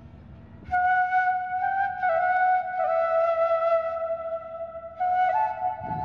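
Background music: a single flute-like melody line with sliding notes. It comes in loud about a second in after a soft held note and dips briefly before rising again near the end.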